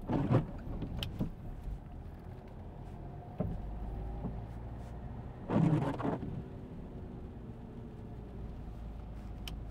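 Steady low rumble and hum of a car's engine and tyres, heard from inside the cabin while driving slowly. Two brief louder sounds come near the start and about halfway through.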